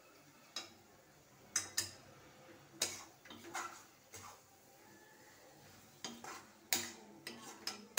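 Metal spoon scraping and clinking against a metal kadai while stirring thick carrot halwa, in about ten irregular strokes. This is the last stirring as the halwa finishes cooking.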